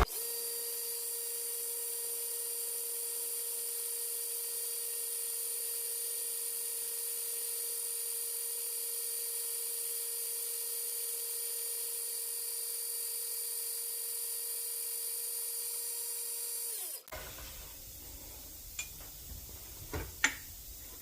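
A drilling machine runs with a steady high whine while drilling a hole in a cast-iron casting. About 17 seconds in it winds down and stops, and a few light clicks follow.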